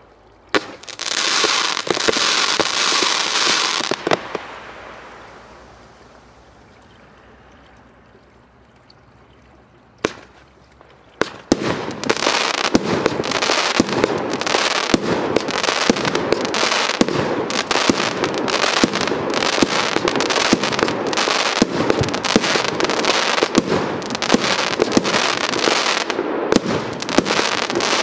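A 112-shot compound firework cake of 20 and 30 mm tubes. It opens with a loud hiss for about four seconds that then fades away. A single sharp report comes about ten seconds in, another follows a second later, and from then on the shots launch and burst in rapid, unbroken succession over continuous crackling.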